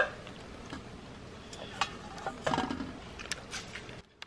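Faint, scattered clicks and ticks from fingers picking at stingless-bee honeycomb in a stainless steel bowl, with a louder one about two and a half seconds in.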